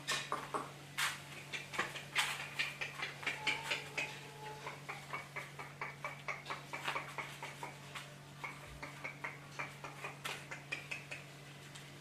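Quick run of light clicks and taps on a tile floor, about four a second and loudest in the first few seconds, from a feather boa toy with a small object on its end being dragged about and a bandog puppy scrambling after it. A low steady hum runs underneath.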